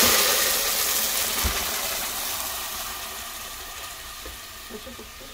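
Blended red chile sauce hitting hot oil in a pot and frying, with a loud sizzle at first that gradually dies down.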